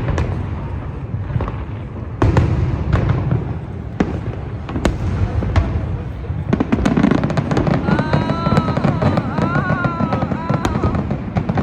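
Fireworks display: single booms of bursting shells a second or so apart, then from about six and a half seconds a dense, rapid crackling of many small reports.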